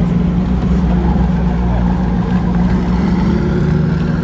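Koenigsegg Jesko Absolut's twin-turbo 5.0-litre V8 running steadily at low revs, a deep even drone, as the car creeps away at walking pace.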